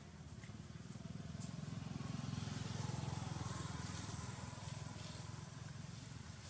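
A motorbike engine passing on the road, swelling to its loudest about halfway through and then fading.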